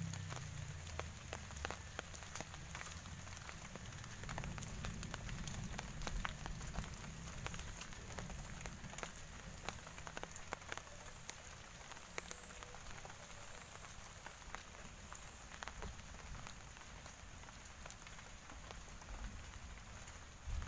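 Rain falling steadily, with many small drop ticks pattering on leaves and ground.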